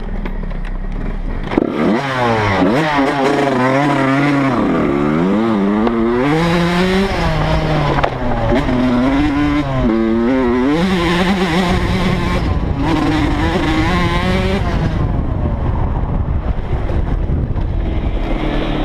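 Dirt bike engine ridden hard: it pulls away about a second and a half in and revs up and down repeatedly through the gears, then settles into a steadier run for the last few seconds.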